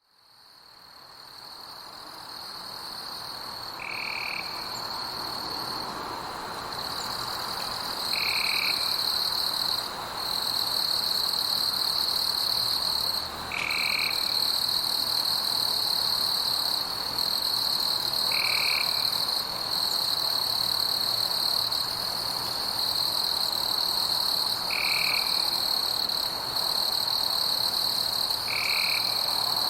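Night forest ambience: a continuous high-pitched insect chorus, with a short lower call repeating about every five seconds. It fades in over the first few seconds.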